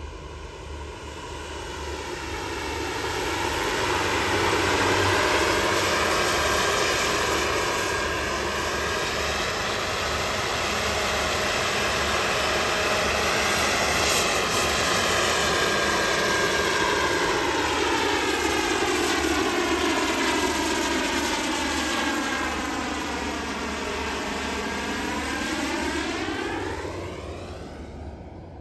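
A JetCat PHT3 gas-turbine-powered 1:4 scale Hughes 500D RC helicopter in flight, its turbine and two-metre main rotor making a continuous jet-like rush. The sound grows louder over the first few seconds as the helicopter comes close, with a sweeping, flanging change in tone as it passes. It fades near the end as it flies off.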